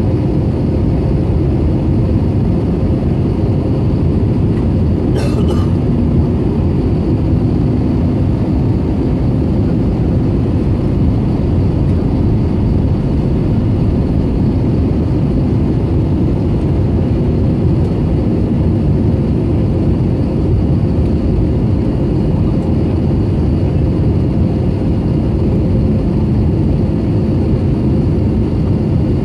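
Steady roar of engine and airflow noise inside the cabin of an Airbus A320neo in flight, heavy in the low end with a faint steady hum running through it. A brief click sounds about five seconds in.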